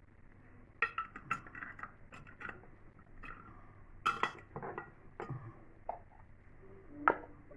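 Glass jars clinking and knocking as they are handled and set down: a string of irregular sharp clinks, the loudest about four seconds in and near the end.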